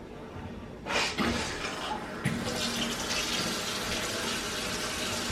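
Kitchen sink cold tap starts running about a second in, uneven at first and then a steady stream, with the water supply reconnected after a water filter was removed from under the sink.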